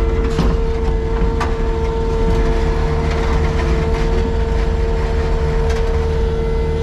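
Engine of farm machinery running steadily, with a constant whine over a low rumble and a few faint knocks.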